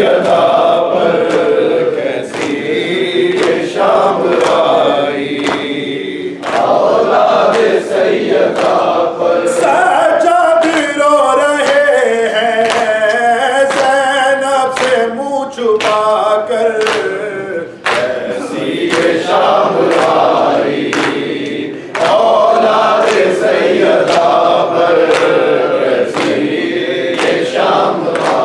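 Male voices chanting an Urdu noha, a Shia lament, in unison, with a steady beat of open-handed chest slaps (matam). In the middle, the lead reciter sings a line alone with a wavering, ornamented melody before the group comes back in.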